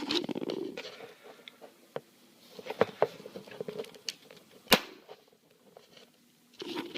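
Handling noises from air fittings and hardware being worked by hand: rustling and scraping with scattered sharp clicks, one loud click a little under five seconds in.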